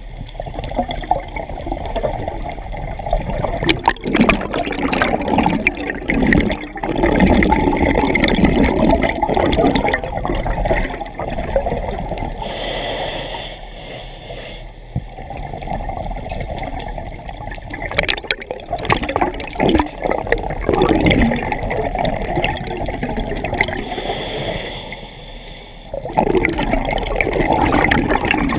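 Scuba regulator breathing heard through an underwater camera housing: a short hiss of inhaling, then several seconds of gurgling, rushing exhaled bubbles. The cycle repeats twice.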